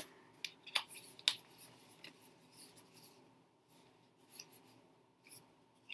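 Tarot cards being slid apart and shifted through the hands, giving faint, irregular soft clicks and rustles of card on card.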